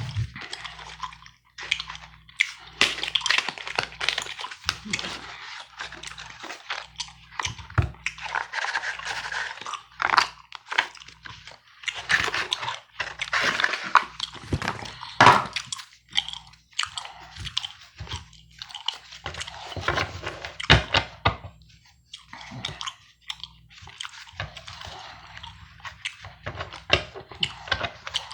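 Close-miked gum chewing, a steady run of irregular clicks and short crunchy bursts, mixed with the handling of playing cards.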